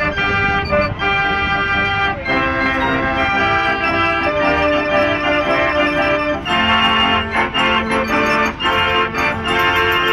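Fairground pipe organ playing a tune loudly: held pipe notes that change every second or so, over a regular beat.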